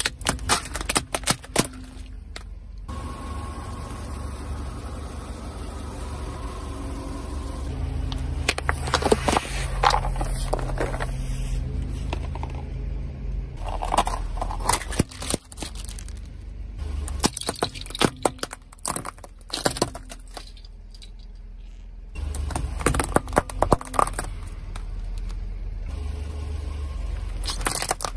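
Car tyres rolling slowly over crunchy objects and crushing them, in several clusters of sharp cracks and crunches, over the low hum of the car's engine.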